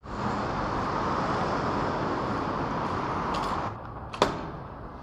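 Steady traffic and street noise, then a couple of sharp clicks a little over three and about four seconds in as an electric-vehicle charging connector is unlatched and pulled from a car's charging port.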